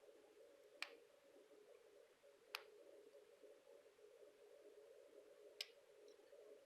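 Three faint, sharp metallic clicks a couple of seconds apart over a faint steady hum: a steel hook pick working the pin stacks of a six-pin padlock core under tension from a pry bar, during single-pin picking.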